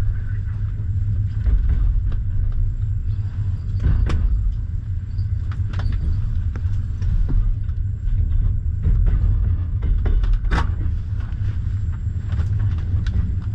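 Double-decker passenger train coach rolling along the track, heard from inside: a steady low rumble with scattered sharp clicks and squeaks from the running gear, the loudest about ten and a half seconds in, as the train arrives at the terminus.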